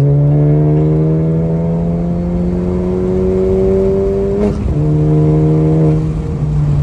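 Honda Civic Si's 1.5-litre turbo four-cylinder, breathing through a PRL downpipe and front pipe and a MAP Performance race catback exhaust, pulling through a gear with a slowly rising note. About four and a half seconds in there is a short break at a gear change, after which the note is lower and steadier, and it drops again near the end.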